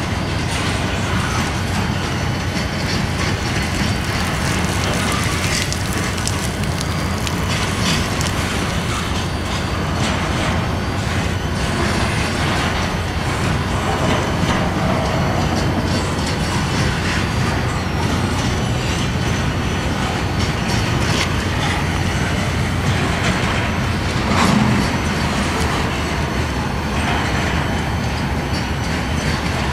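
Pan Am Railways freight train's cars rolling past at close range: a steady rumble of steel wheels on rail with fast clicking over the rail joints, and one brief louder clunk about three-quarters of the way through.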